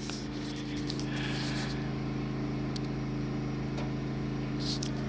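A steady low hum of several pitches, with a few faint crackles and soft hissing from a wood fire burning in a homemade furnace.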